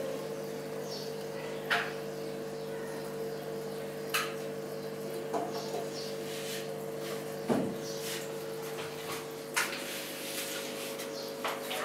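Steady hum of several fixed tones from aquarium equipment, with six sharp clicks and knocks at irregular moments, one of them with a dull thump about seven and a half seconds in.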